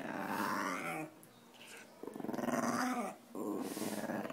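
Small fluffy puppy growling in three bouts, with a pause of about a second after the first, while its head is held and rubbed by hands.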